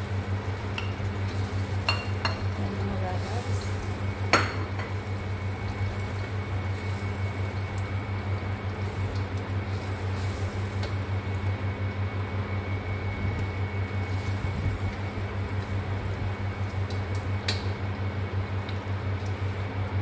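Kitchen range hood fan humming steadily while chopped onions fry in oil in a stainless steel wok. A spatula knocks and scrapes against the wok a few times, sharpest about four seconds in.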